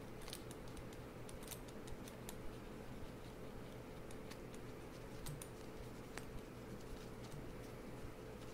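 Faint, irregular small clicks and light rubbing from gloved hands polishing a small steel Glock trigger part with metal polish.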